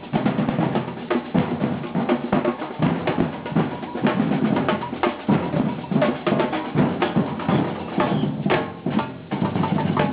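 Drums playing a fast, dense rhythm, with bass drum and snare drum strokes packed closely together.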